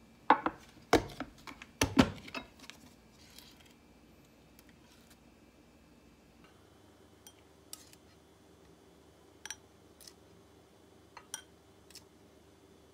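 Clip-lock plastic lid of a glass food container snapped open with a quick series of sharp clicks and knocks. Then a few light clinks as a plastic spoon scoops kiwi syrup and taps against glass.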